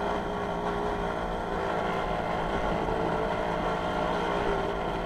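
WSK 125 motorcycle's single-cylinder two-stroke engine running steadily while riding, a continuous engine note that holds nearly the same pitch throughout.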